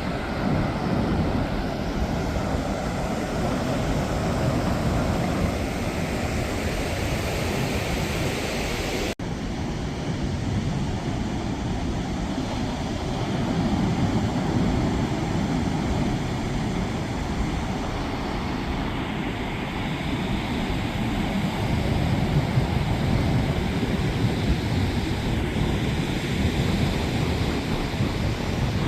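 Wind buffeting the microphone over the steady wash of ocean surf, with a brief break about nine seconds in.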